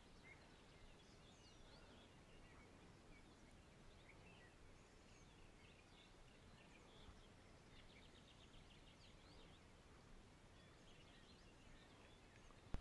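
Near silence: faint distant birdsong of scattered chirps, with a quick trill about eight seconds in. A single short knock right at the end.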